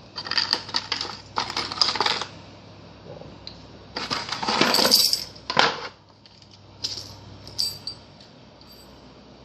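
Small tool-kit parts and their packaging being handled and taken out of a box, rattling and clicking in two longer bursts, then a few separate clicks.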